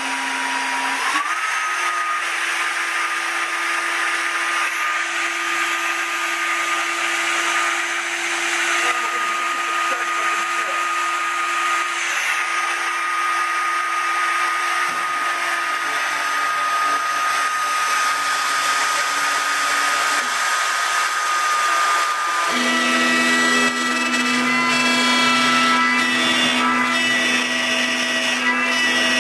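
Electric wood router on a CNC table switched on, spinning up over the first second or so to a steady high whine. About 22 seconds in the sound changes, with a lower hum and a higher tone joining the whine.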